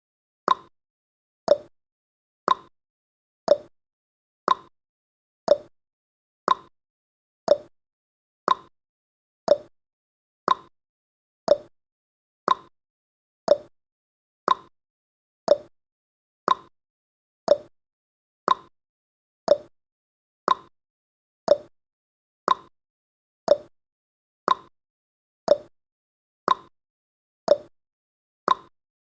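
Countdown timer's tick sound effect: one short, sharp tick every second, evenly spaced.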